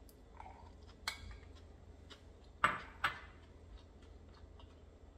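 A few sharp clicks and clinks of eating with a spoon from a dish. The loudest two come close together about halfway through.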